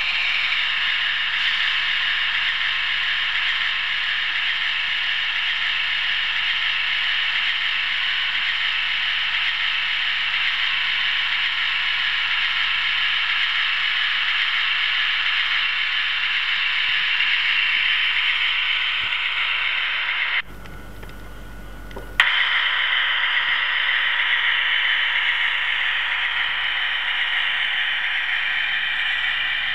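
OO gauge model train running along the track, heard from on board: a steady mechanical running noise from its wheels and gearing on the rails. Around twenty seconds in, the noise drops out abruptly for about two seconds, then returns.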